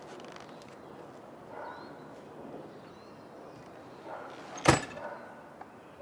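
An exterior house door bangs shut once, a single sharp knock about three-quarters of the way through.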